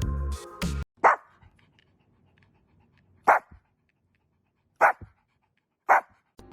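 A dog barking four times, single sharp barks one to two seconds apart. Background music cuts off just before the first bark.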